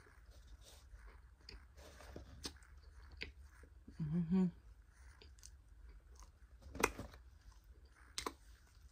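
Mouth sounds of someone eating dry cornstarch: soft chewing with scattered clicks and crunches. A short hummed "mm" comes about four seconds in.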